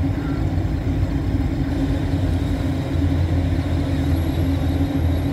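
Corvette V8 engines running at parade pace as the cars roll slowly past, a steady low rumble that grows slightly louder about halfway through.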